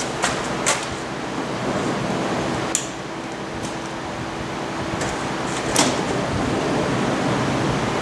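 Honda Odyssey minivan's sliding door pushed by hand along its track on a newly replaced centre roller, rolling with a few sharp clicks, the loudest about six seconds in. Under it runs the steady hum and hiss of a shop heater.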